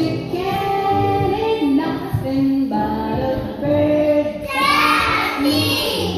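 Young children singing a children's song, a simple melody with held notes.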